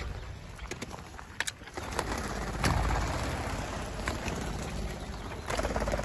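Chukar partridges calling, over a low wind rumble on the microphone and a few sharp clicks.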